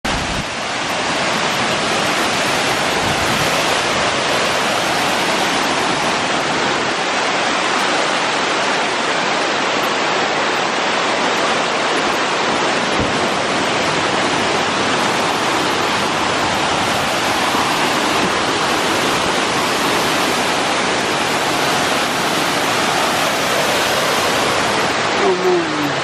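Water cascading down a stepped rock waterfall into a pond, a steady rushing that does not let up.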